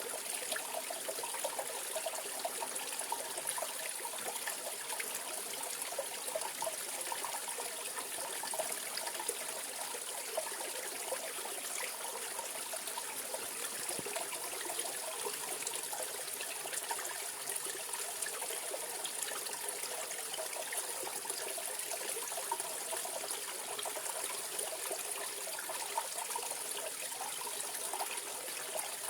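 Mountain valley stream flowing over rocks, a steady babbling and splashing of running water.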